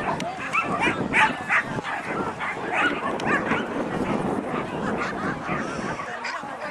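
Dogs barking and yipping in quick, repeated short calls, several a second, over a steady background hum.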